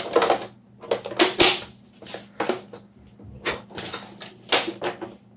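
Plastic knocks, clicks and rattles of a Roborock S5 Max robot vacuum's dust bin and filter being handled, fitted back together and pushed into place in the robot: a series of short, sharp strikes, several of them loud.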